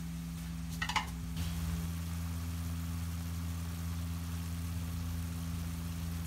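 Steady low machine hum, with a couple of light clicks about a second in.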